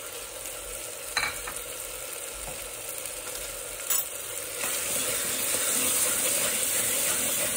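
Tomatoes, hing and green chilli sizzling in hot ghee in a pressure cooker while a steel spoon stirs them. The spoon clinks against the pot twice, and the sizzle grows louder a little past halfway.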